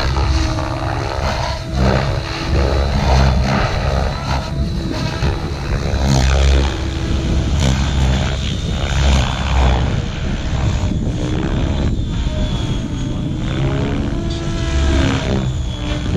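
Radio-controlled model helicopter flying aerobatics, its rotor and motor running with a pitch that rises and falls over and over.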